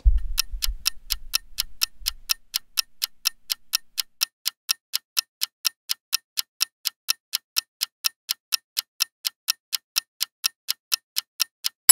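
Clock ticking, a steady, even tick about four times a second. A low rumble sits under the first two seconds.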